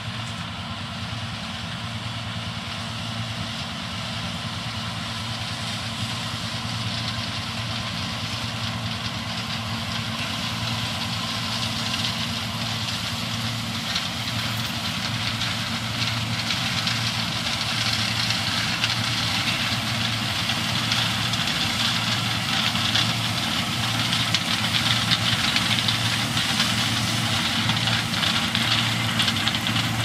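John Deere 6620 combine harvesting corn: its diesel engine runs with a steady hum under a hiss, both growing gradually louder as the machine comes closer.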